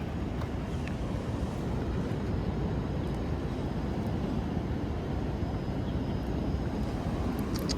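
A steady low rumbling noise, with a few faint ticks.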